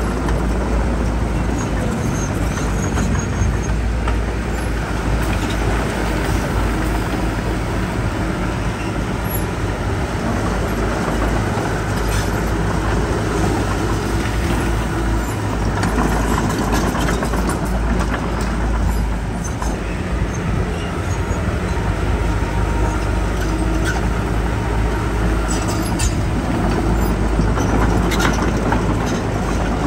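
Heavy diesel earthmoving machinery running steadily, with scattered short clanks.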